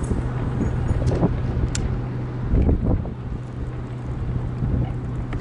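Wind buffeting the camera microphone, giving a loud, uneven low rumble, with a steady low hum underneath.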